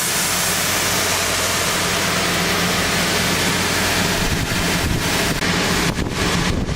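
CNC sander running and sanding a snowboard wood core: a loud, steady abrasive rush over a low motor hum. Near the end, the high hiss drops out briefly several times.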